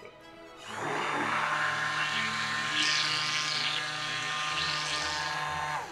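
Handheld immersion blender running with its blade in a glass pitcher of raspberry and milk chocolate ganache, emulsifying the mixture. The motor starts about half a second in and then runs steadily.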